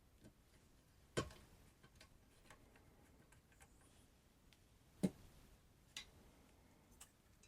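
Faint scattered clicks and taps of small parts and tools being handled on a workbench, with two sharper knocks, one about a second in and one about five seconds in.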